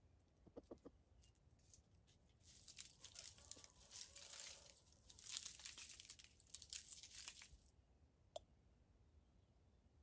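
Faint crackling and rustling, like leaves or material being handled close to the microphone, for about five seconds in the middle, then a single click.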